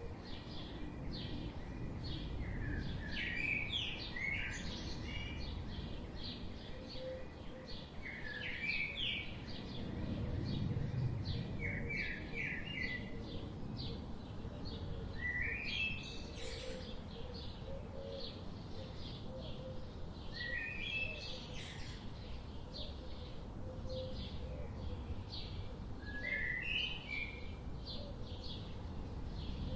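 Wild birds singing: one bird repeats a short song phrase every four or five seconds, while others chirp steadily higher up, over a low background rumble.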